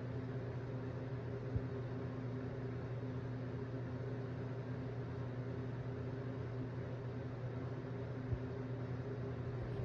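Steady low mechanical hum with a faint hiss, like a fan or appliance running, broken by two brief clicks, one about a second and a half in and one about eight seconds in.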